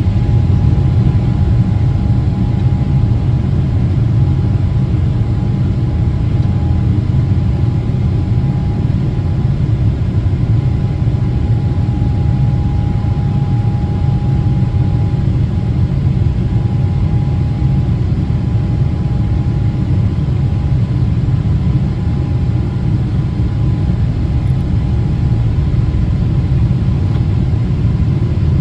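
Boeing 777-300ER's GE90-115B jet engines running with a steady, heavy rumble and a faint steady whine above it, unchanging throughout.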